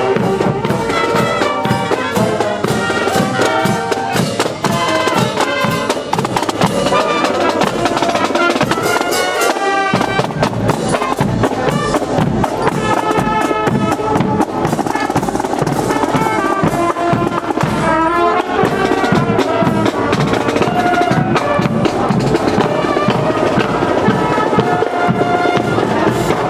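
Marching band of saxophones, trumpets and bass drum playing a tune on the march, the bass drum keeping a steady beat. The drum drops out briefly about ten seconds in, then comes back.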